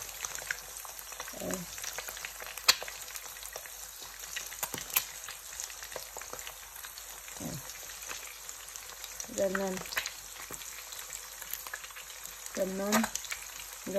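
Eggs frying in shallow hot oil in a pan: a steady sizzle full of small crackling pops, with a sharper tick now and then as a fork works at the whites.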